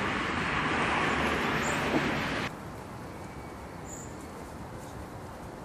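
Outdoor background noise: a steady hiss that drops suddenly about two and a half seconds in at a cut, leaving a quieter, steady low rumble.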